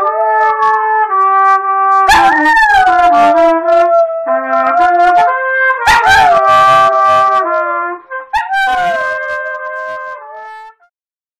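Trumpet playing held notes while a Border Terrier howls along, three long howls that rise and then slide down in pitch. The playing and howling fade out near the end.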